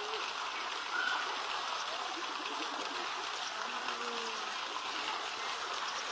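Steady flow of water running and trickling into an elephant enclosure's pool, an even, continuous rushing.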